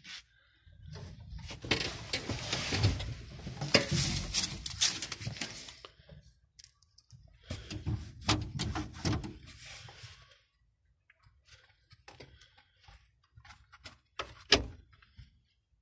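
Handling noise in a tractor cab with the engine off: irregular rustling, scraping and clicks in two busy stretches. A sharp knock comes about a second before the end.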